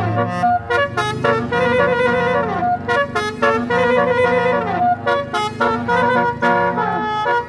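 Bus 'basuri' telolet horn, a multi-tone melody air horn, playing a fast tune of short notes, several phrases ending in a downward pitch slide, over a steady low hum.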